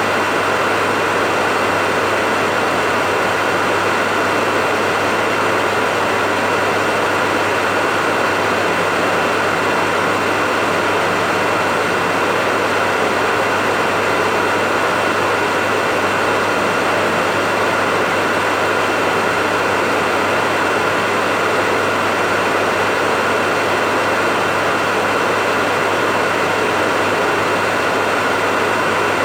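Hair dryer running steadily: an even blowing hiss with a constant motor hum and whine, unchanging throughout.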